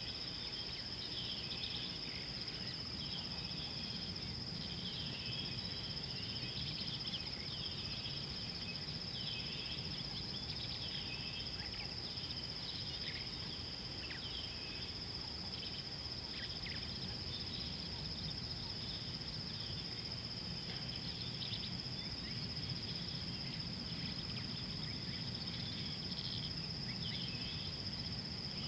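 Steady high-pitched insect drone running unbroken, with many short bird chirps scattered throughout, over a steady low background noise.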